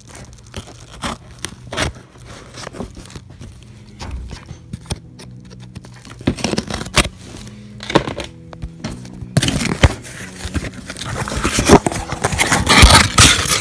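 A cardboard shipping box and its packing being handled and opened by hand: scattered scrapes and clicks, then dense crackling and tearing noise that gets louder from about nine seconds in. Soft background music plays underneath.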